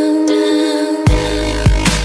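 Electronic dance music with a dubstep feel: a held synth chord with the bass cut out, then heavy bass and drum hits coming back in about a second in.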